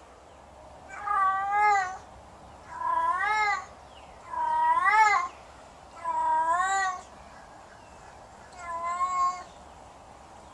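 Domestic tabby cat yowling: five drawn-out calls that waver up and down in pitch, about two seconds apart. It is the yowl that cats use to seek a mate or to warn others off their territory.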